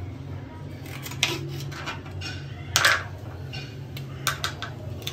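Kitchen utensils and dishes clinking and knocking against each other in a few separate hits, the loudest about three seconds in, over a low steady hum.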